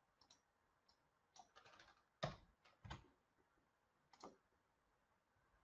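A few faint, widely spaced computer keyboard keystrokes over near silence, the clearest about two, three and four seconds in.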